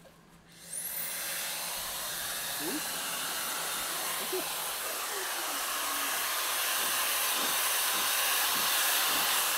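Jellyfish handheld pet dryer switching on about a second in, its motor whine rising quickly. It then blows steadily on its high setting with unheated air, a loud rushing hiss that grows a little louder toward the end.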